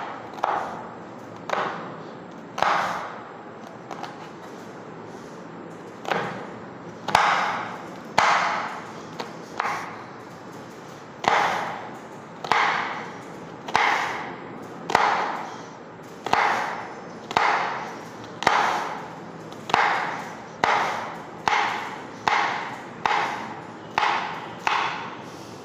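Kitchen knife chopping bitter gourd on a wooden cutting board, each cut ending in a knock of the blade on the board. Irregular cuts with a pause of a few seconds in the first part, then a steady run of about one and a half cuts a second.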